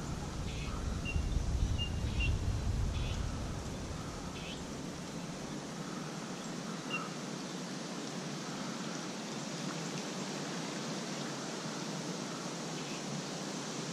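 Outdoor ambience with steady wind noise on the microphone, gusting a little louder over the first few seconds, and a few short, faint high chirps early on.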